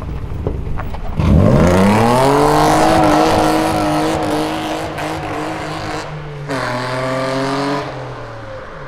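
Car engine revving hard for a burnout on a dirt lot, with the wheels spinning. The engine note rises sharply about a second in and stays high for about four seconds under a hiss of spinning tyres and thrown dirt. It drops back, revs up again briefly near the end, then fades as the car drives away.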